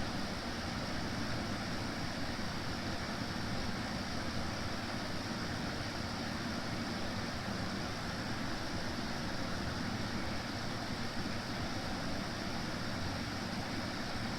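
Consul 12,000 BTU portable air conditioner (model C1A12ABB) running steadily, a constant rush of fan air with a low hum underneath.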